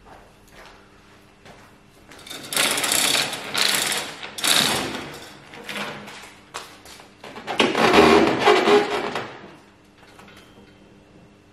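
Two bursts of rough crackling and rattling, one about two and a half seconds in and one about eight seconds in, as a fibreglass (GRP) boat hull hanging on chain hoists is worked free of its mould.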